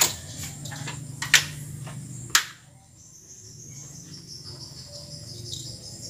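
Three sharp clicks and knocks of a motorcycle helmet being lifted off a scooter's mirror and handled, over a steady high trill of insects.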